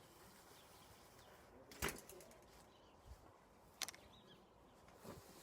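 Quiet garden ambience with faint bird calls, broken by two sharp knocks about two seconds apart.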